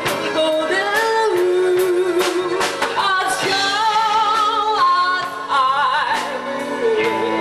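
A woman singing a slow melody with vibrato, backed by a live band of electric guitar, keyboard, electric bass and drums with cymbal strokes.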